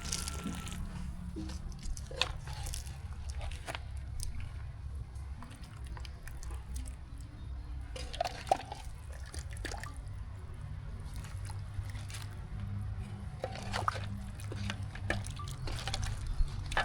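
Liquid sloshing and dripping, with scattered light clicks over a steady low rumble.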